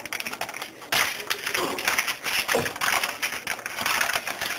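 EVAP drying pouch, a zip-top bag, being pulled open and handled: dense crinkling and rustling of the bag, starting about a second in.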